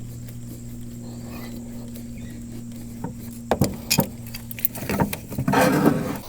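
Metal clinking and rattling from hand tools on the battery terminals and connectors of a military truck. There are sharp clicks about three and a half and four seconds in, then a louder metallic rattle near the end. A steady low hum runs under the first five seconds, then stops.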